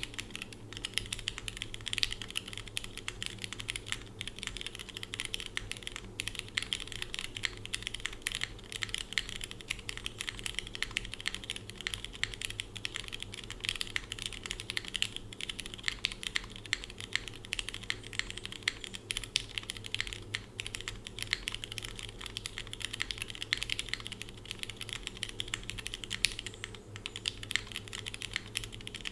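Continuous fast typing on a mechanical keyboard: lubed and filmed Cherry MX Red linear switches in a friction-mounted aluminium plate with no foam. The keycaps are DCX, then GMK Handarbeit R2 from about a second and a half in.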